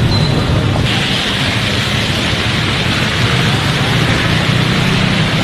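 Steady road traffic noise: a rumble with a hiss above it that gets brighter about a second in.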